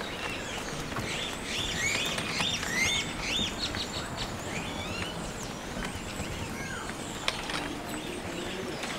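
Birds chirping: a quick run of short, repeated arching chirps in the first few seconds, then scattered calls, over steady outdoor background noise.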